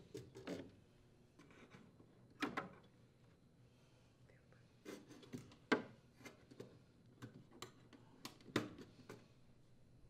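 Faint, scattered clicks and rustles of rubber furnace drain hoses and spring hose clamps being handled and pushed back onto their ports.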